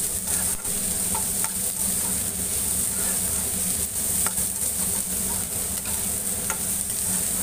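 Chopped onion, capsicum and green chillies sizzling in oil in a metal kadai while a spatula stirs them, scraping and lightly clicking against the pan now and then.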